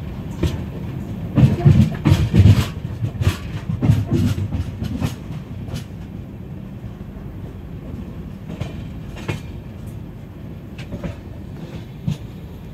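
Passenger express train wheels clattering over rail joints as the train pulls out of a station, heard from an open coach doorway: a dense run of knocks about one to five seconds in, then a steadier rumble with occasional clicks.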